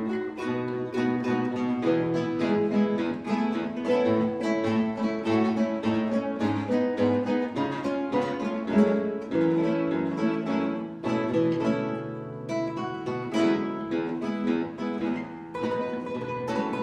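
Ensemble of nylon-string classical guitars playing together: a plucked melody over a moving bass line.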